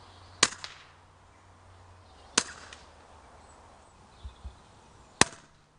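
Three shots from a Daystate Mk4 iS pre-charged pneumatic air rifle, each a sharp crack, about two seconds apart; the first two are followed by a fainter tick.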